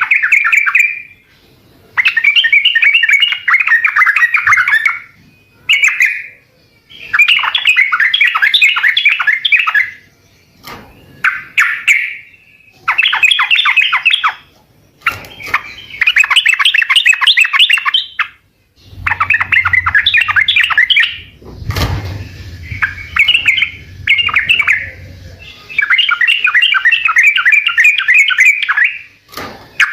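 Yellow-vented bulbul (trucukan) singing actively: loud, bubbling phrases of quick chattering notes, one after another, with short pauses between them.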